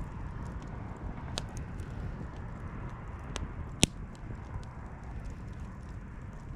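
Campfire burning with a steady low rush and scattered crackles from the wood, including a sharp pop a little under four seconds in.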